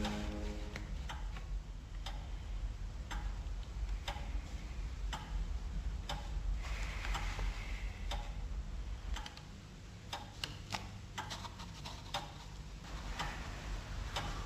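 A clock ticking in a quiet room, with a run of sharp, fairly regular ticks. The last notes of music die away in the first second.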